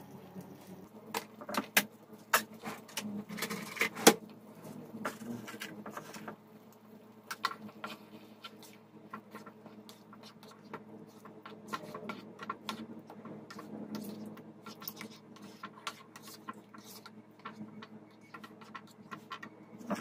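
Plastic spatula stirring and scraping thick tomato sauce in a nonstick frying pan, with sharp knocks of the spatula against the pan, the loudest in the first few seconds. A steady low hum runs underneath.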